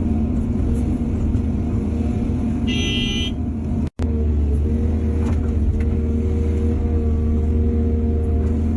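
Diesel excavator engine running steadily, with a brief high-pitched tone about three seconds in and a momentary cut-out of all sound just before four seconds.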